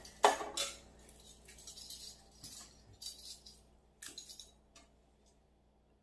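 Light taps, clinks and rustles of sneezeweed stems being handled and pushed into floral foam in a galvanized metal bucket. It is a scatter of short, quiet sounds that dies away about five seconds in.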